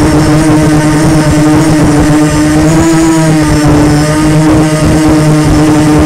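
Quadcopter drone's motors and propellers running with a steady, loud buzz that drifts slightly up and down in pitch, over a rough low rumble.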